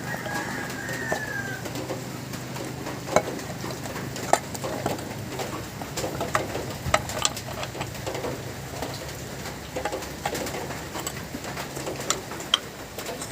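Scattered sharp clicks and knocks of hand work on a chainsaw being taken apart, over a low steady hum. A bird calls in the background, with a short falling whistle in the first second or so.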